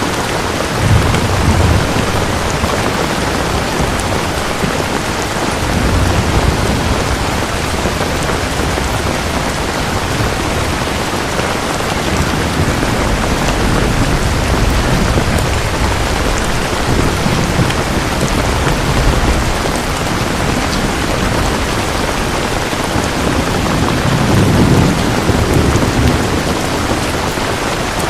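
Steady heavy rainfall, a dense even hiss of drops, with low rumbles swelling a few times, about a second in, around six seconds, through the middle and near the end.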